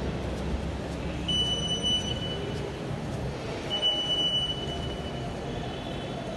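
Two long, high electronic beeps about two and a half seconds apart, over the steady low noise of a station hall.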